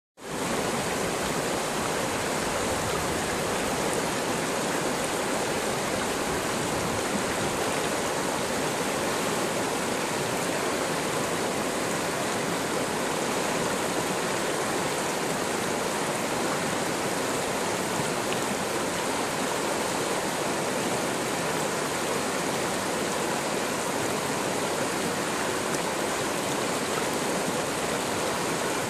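River rapids in high water rushing over and around rocks: a steady, unbroken rush that does not change.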